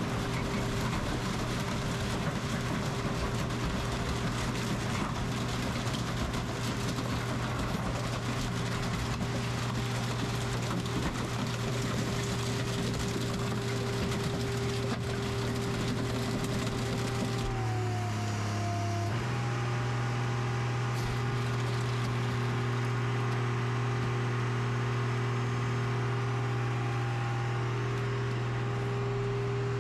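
Car crusher's engine running steadily, its pitch dipping for about a second and a half a little past halfway through, then returning.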